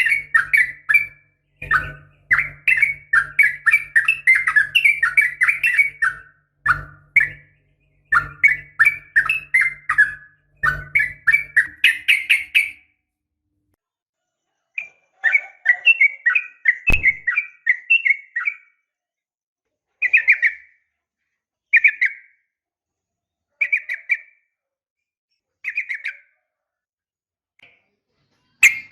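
Yellow-vented bulbul (trucukan) calling in quick, bubbly chattering phrases, a female's call to a male. The phrases run almost without a break for the first half, then after a short pause come as short bursts about every two seconds.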